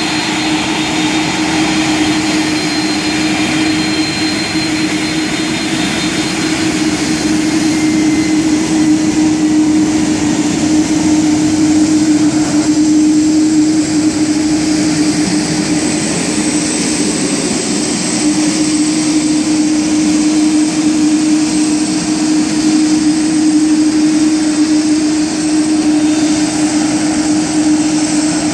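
McDonnell Douglas MD-11's three turbofan engines running at taxi power as the airliner rolls slowly by. It is a steady low hum under a thin high whine over a broad rushing noise.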